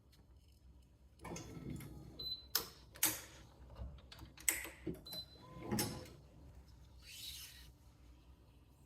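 Badminton racquet being restrung on a stringing machine: a run of clicks, knocks and rustles of string and tools, with a few short squeaks, mostly in the first two thirds, and a brief soft hiss near the end.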